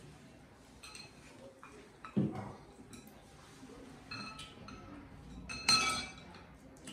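Chopsticks clinking against a clear bowl of black bean noodles during eating: a few light clicks, a dull thump about two seconds in, and a louder ringing clink near the end.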